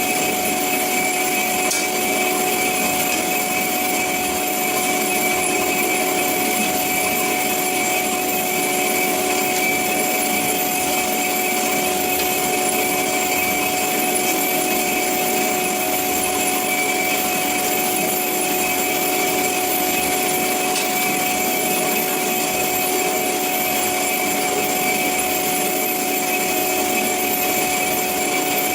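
CORMAK S-200R semi-automatic band saw running with its blade cutting through metal stock: a steady machine whine over even sawing noise, unchanging throughout.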